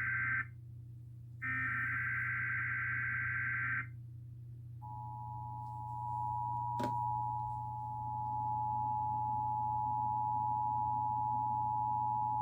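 Emergency Alert System test tones. A burst of SAME header data, a harsh electronic screech, ends about half a second in, and a second burst runs for about two and a half seconds after a one-second gap. About five seconds in, the steady two-tone EAS attention signal begins and holds to the end, with one brief click partway through, over a faint low hum.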